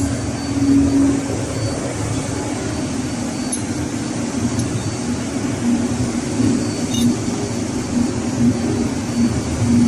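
Steady low hum of running machinery, with a few faint metallic clicks as steel fuel-pump parts are handled.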